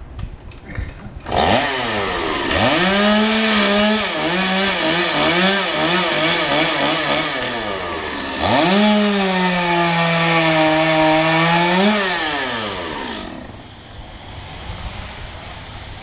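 Chainsaw revved up about a second in, its engine speed wavering and dipping while it cuts into wood. It revs up again and holds high and steady, then falls back to a low idle near the end.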